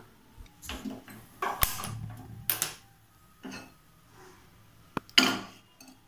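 Knocks and clatters of cookware being handled at a gas stove, ending in a sharp click and then the loudest clunk about five seconds in as a kadai is set down on the burner's metal pan support.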